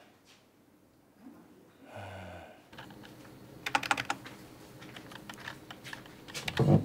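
Typing on a computer keyboard: a run of key clicks starting about three seconds in, with a louder flurry about a second later. A louder, duller knock comes near the end.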